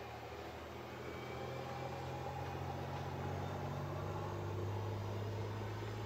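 A car passing by on the road, its engine and road noise swelling over several seconds to its loudest near the end and then easing off.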